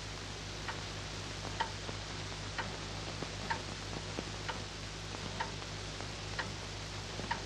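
Clock ticking slowly and evenly, about one tick a second, over the steady hum and hiss of an old film soundtrack.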